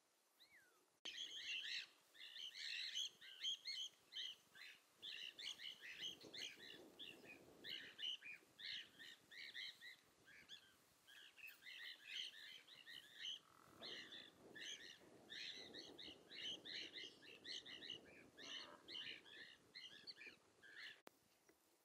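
A dense chorus of small birds chirping and twittering rapidly, starting abruptly about a second in and cutting off abruptly near the end. A soft low rustle comes and goes underneath.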